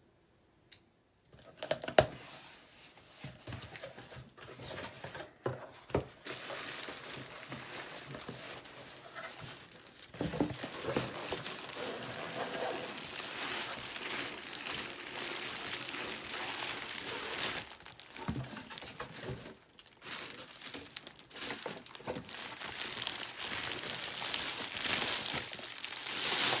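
Shipping package being unpacked by hand: packing material crinkling and tearing, with a sharp knock about two seconds in and scattered clicks of handling throughout.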